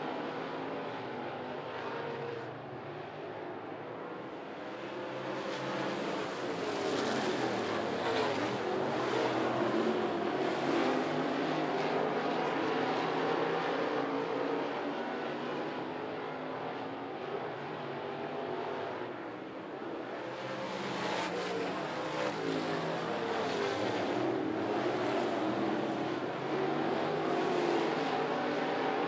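Several dirt late model race cars' V8 engines running hard at racing speed on a dirt oval. The engine note swells louder twice as the cars come by.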